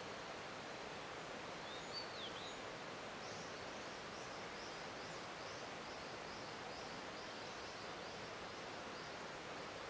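Blue-and-white flycatcher singing faintly: a few clear whistled notes that slide up and down about two seconds in, then a long run of short, rapid repeated high notes. A steady rushing background noise lies under the song.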